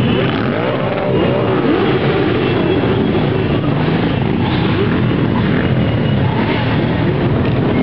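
Many motorcycle engines, sport bikes, cruisers and scooters, running together as a dense procession rides past, with overlapping engine notes rising and falling as individual bikes pass and rev.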